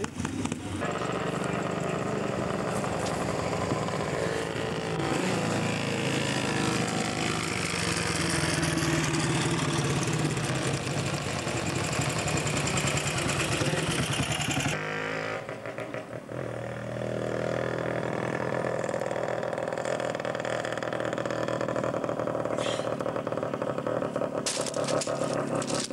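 Classic motorcycle engines running hard on a race circuit. About fifteen seconds in, the sound cuts abruptly to a steadier, more distant engine drone.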